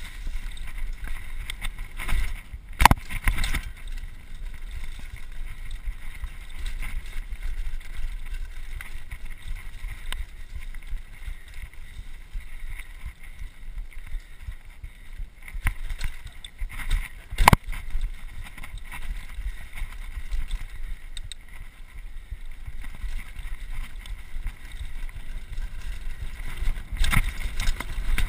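Mountain bike riding fast down a dirt singletrack: wind buffeting the action-camera microphone over the rumble of knobby tyres on dirt and the clatter of the bike. Sharp knocks from the bike hitting bumps come about three seconds in and again a little past halfway.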